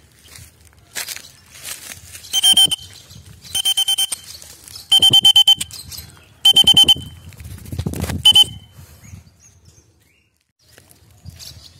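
Lovebirds calling loudly: five bursts of shrill, rapidly repeated notes, each burst about half a second long and a second or so apart, with a low rumble around the last one.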